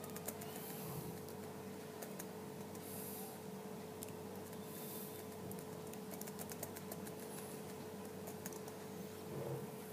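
Faint, scattered keystroke clicks of typing on a computer keyboard, as a password is entered at a terminal prompt. A steady low hum runs underneath.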